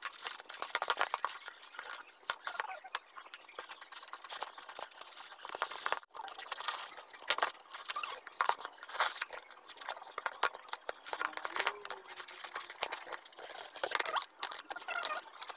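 Scissors cutting and tearing through the packing tape and cardboard of a parcel: an irregular run of crackles, scrapes and rustles.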